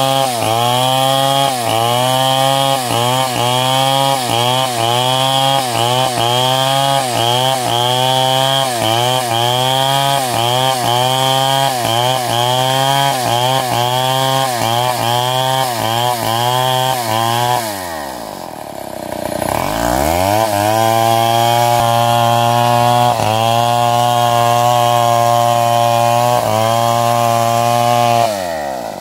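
Engine-driven wood saw cutting timber, its motor note dipping in a regular rhythm about every three-quarters of a second as the blade loads up. About two-thirds of the way through it slows right down and picks back up, then runs steadier before slowing again near the end.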